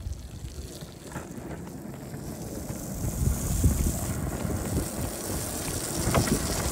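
Longboard with a skateboard stacked on top rolling on asphalt: a low wheel rumble that grows louder as it picks up speed, with wind buffeting the microphone and a few knocks.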